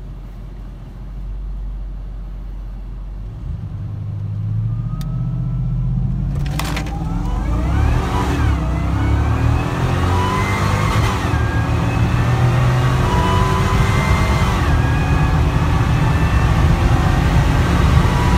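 Supercharged Toyota Tundra 5.7-litre V8 at full throttle on a quarter-mile drag run. It pulls away about three and a half seconds in and gets steadily louder, the pitch climbing and dropping back at each of about three upshifts.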